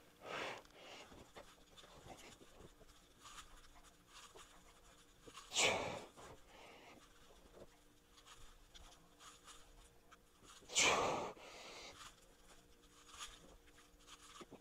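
A man's sharp, forceful breaths while lifting a weight to failure, three of them about five seconds apart, with faint scuffs and ticks in between.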